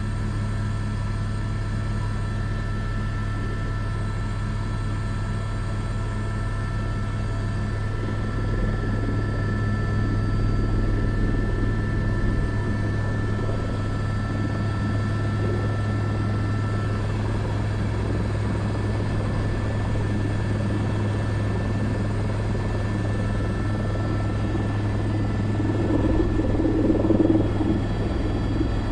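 Airbus AS350 B3 (H125) helicopter heard from the cockpit while hovering to set down a sling load. A steady rotor drone and turbine whine run throughout, getting a little louder briefly near the end.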